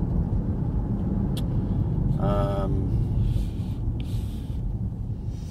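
Road noise inside a moving car: a steady low rumble from tyres and engine. About two seconds in, a short hummed voice sound is heard.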